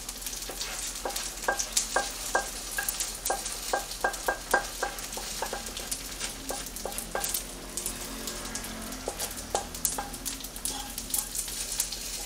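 Chunjang (black bean paste) frying in oil, sizzling steadily, while a utensil stirs it and clinks and scrapes against the pan, a quick run of strokes in the first half that thins out later.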